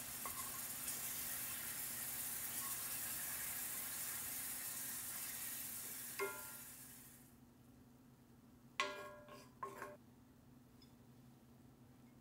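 Masala sizzling in a cast iron skillet as a wooden spoon stirs it; the sizzle fades away about two-thirds through. A few sharp, ringing clinks follow near the end.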